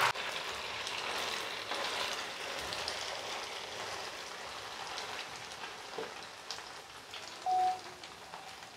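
Boiled noodles deep-frying in a pan of hot oil: a steady crackling sizzle, much like rain, slowly getting quieter. A short steady tone sounds briefly about seven and a half seconds in.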